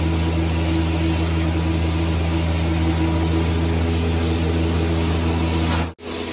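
Carpet-cleaning hot-water extraction machine running steadily while its wand cleans carpet tiles: a loud, even drone with a strong low hum. About six seconds in it breaks off for an instant and comes back slightly quieter.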